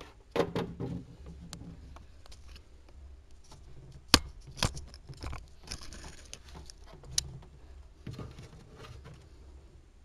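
Hands working at a car's interior trim and wiring: scattered light clicks, knocks and rustles of plastic and metal, the sharpest click about four seconds in and another about seven seconds in.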